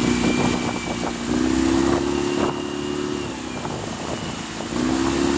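Yamaha 9.9 hp four-stroke outboard running at speed, over the rush of wake water and wind. Its pitch drops a little about three seconds in and picks up again near the end.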